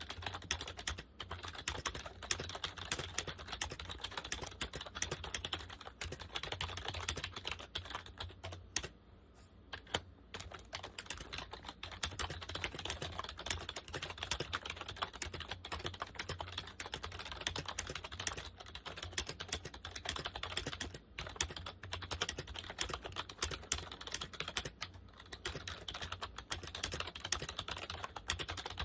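Compaq KB-3923 rubber dome keyboard being typed on steadily, a fast run of soft key clicks and bottoming-out thuds, with a short pause about nine seconds in.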